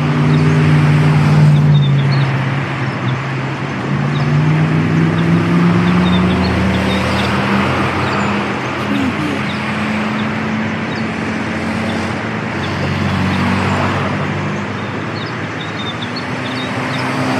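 City street ambience: motor vehicles passing with a steady wash of traffic noise and a low engine hum that slowly rises and falls, while small birds chirp briefly here and there throughout.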